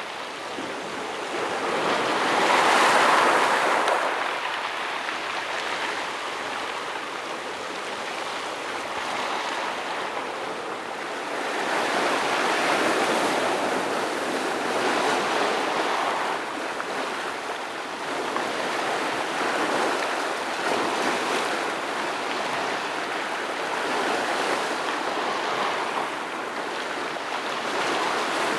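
Ocean waves breaking against a rocky shore, a continuous rushing wash that swells and eases in repeated surges, the loudest about three seconds in.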